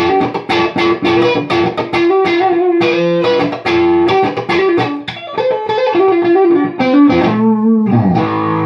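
Les Paul electric guitar played through a modded Orange Tiny Terror valve amp, both pickups on, with the guitar's volume knobs rolled back to about 2 to bring the amp's gain down from the guitar. Quick picked notes and chords, ending on a held chord near the end.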